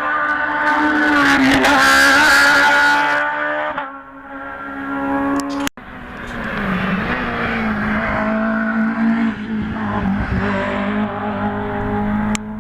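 Hill-climb rally cars at full throttle: an engine at high revs, loudest about two seconds in, then fading away. After an abrupt break just before six seconds, another engine runs hard with its pitch dipping and rising through gear changes.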